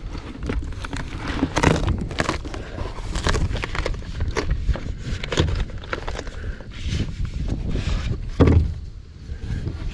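Irregular knocks, thuds and scrapes of handling or stepping, about one a second, over a steady low rumble, with the heaviest thud near the end.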